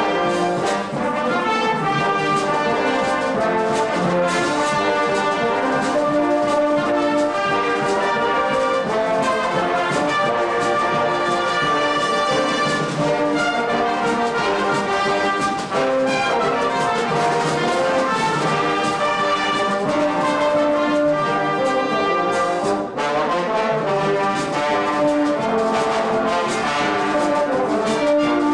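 A large brass band playing a piece of music, with held brass chords and a moving melody line.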